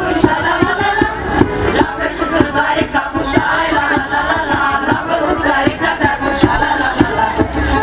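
Folk choir of women and men singing together, accompanied by an accordion, with a steady low pulse of beats under the voices.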